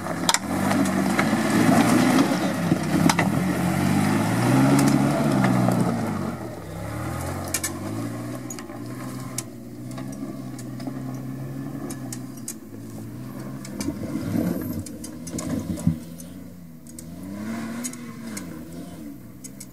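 Mitsubishi Pajero off-roader's engine revving up and down over and over as it works through rough dirt terrain, loud at first and then fainter as it moves away. Scattered sharp clicks and knocks are heard along with it.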